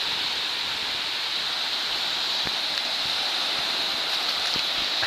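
Small ocean waves breaking and washing up a sandy beach: a steady, even hiss of surf.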